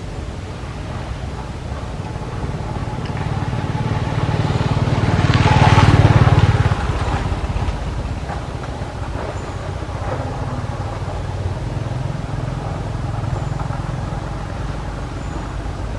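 A motor vehicle passing by: a steady low engine rumble that swells to its loudest about midway and then fades back.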